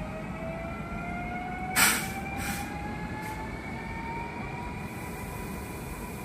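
PKP EP07 electric locomotive under way, its drive giving a whine that rises steadily in pitch as it gathers speed, over a steady rolling rumble. A sharp clank comes just under two seconds in, followed by two fainter ones.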